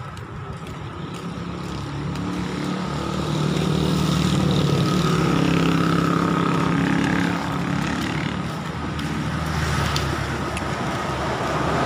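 Road traffic: a motor vehicle's engine passes close by, growing louder over the first few seconds and loudest around the middle, then easing off before more traffic comes up near the end.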